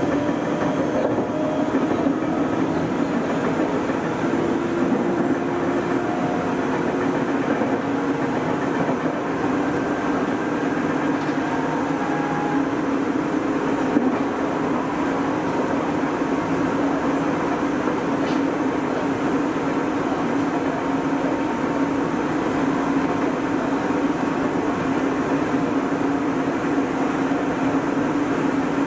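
Nagoya Municipal Subway 3000 series electric train running at speed, heard from inside the front car: a steady rumble of wheels on rail with a constant hum and a single click about halfway through.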